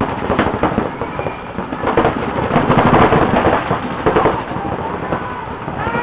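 Several paintball markers firing rapid strings of shots, the volleys overlapping into a fast crackle of pops that is heaviest around the middle.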